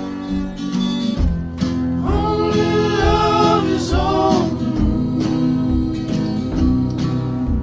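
Background music: a song with acoustic guitar and a steady low beat, with a singing voice coming in about two seconds in.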